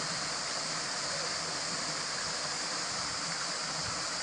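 Steady rush of a small waterfall pouring into a rock pool.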